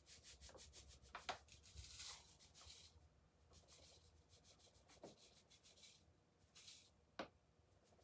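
Faint hiss of vitamin C (ascorbic acid) powder being poured from a plastic pouch into a foam cup, coming in short trickles, with a few faint clicks.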